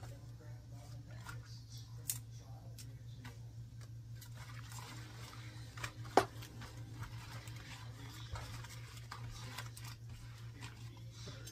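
Faint rustling and crinkling of large Swiss chard leaves as the ribs are torn out and the leaves folded by hand on a wooden cutting board, with a few small knocks and clicks, the sharpest about six seconds in.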